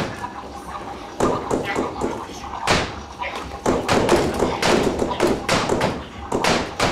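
A dense, irregular run of thumps and taps as objects are handled, knocked and dropped on a stage floor.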